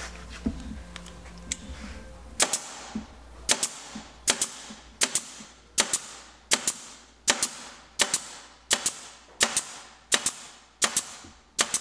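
Staple gun firing staples through carpet into the wooden subwoofer enclosure, a sharp snap about every three-quarters of a second, over a dozen shots starting a couple of seconds in.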